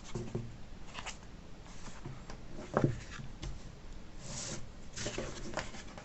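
Cardstock pop-up card being handled: soft paper rustling and sliding, with a single sharp knock nearly three seconds in.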